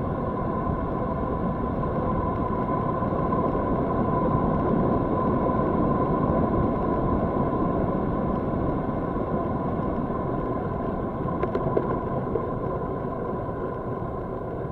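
Wind rushing over an action camera's microphone as a road bike coasts at around 30–40 km/h: a steady rush with a constant high hum through it, loudest in the middle and easing as the bike slows near the end. A few short clicks come about two-thirds of the way through.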